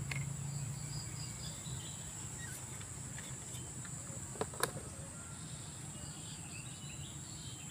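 Steady high-pitched drone of insects, with two sharp clicks about halfway through as a thermos flask's cap is handled.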